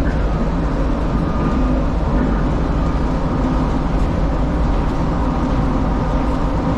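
DFW Skylink automated people-mover train heard from inside the car as it runs along its elevated guideway: a steady low rumble with faint whining tones above it.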